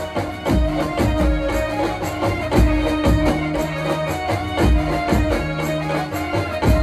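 Live Gujarati garba band playing an instrumental passage through stage loudspeakers: a steady beat of drum strikes under a long held note and a bass line, with no singing.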